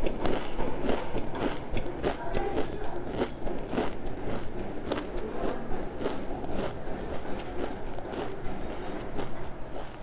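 Close-miked chewing of food, with many short crackles and clicks throughout.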